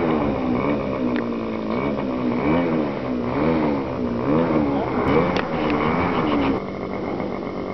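Engine of a large radio-controlled P-51 Mustang model running as it taxis, its pitch rising and falling in repeated swells about once a second as the throttle is worked. About six and a half seconds in it drops to a quieter, steadier run.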